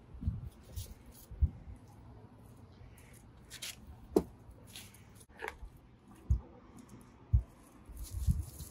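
Thin plastic carry-out bag rustling and crinkling as drinks are taken out of it and set down in a car's carpeted cargo area, with several dull thumps in between.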